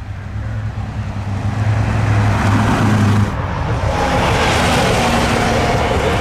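Porsche 911 GT3 Cup (997) race car's flat-six engine under hard acceleration, growing louder as the car comes past and then pulling away with the engine note slowly climbing.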